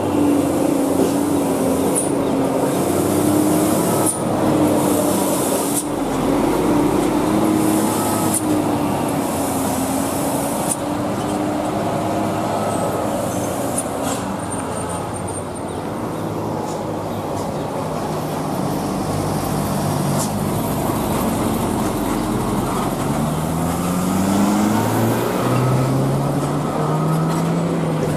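Diesel engines of loaded cargo trucks running as they drive past, the engine note wavering, then rising in pitch twice near the end as a truck accelerates.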